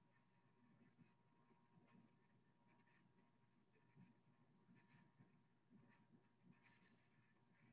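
Near silence with faint, scratchy rustles coming in short bursts, the strongest a little before the end.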